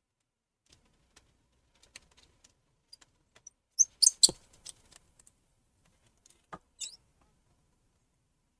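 Small tools and tiny metal parts clicking and squeaking against an iPhone 7's internal frame during reassembly: scattered light ticks, a quick cluster of sharper clicks and short high squeaks about four seconds in, and another brief squeak near seven seconds.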